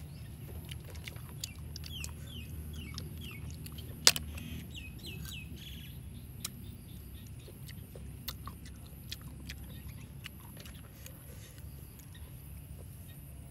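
A bird calling in a run of short falling chirps, two or three a second, through the first few seconds, over small scattered clicks of snail shells being handled and sucked, with one sharp click about four seconds in. A steady low background rumble runs underneath.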